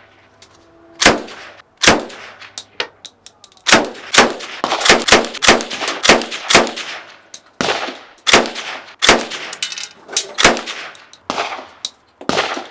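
Gunfire: a string of about eighteen sharp single shots, unevenly spaced, at times two or three a second, each followed by a short ringing echo.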